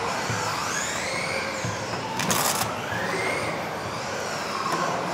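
Electric off-road RC racing cars running together, their motors whining up and down in pitch as they accelerate and brake around the track. A brief hiss about two seconds in.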